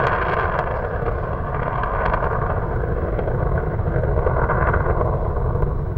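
Falcon 9 first stage, with nine Merlin 1C engines, firing during ascent: a steady rumble.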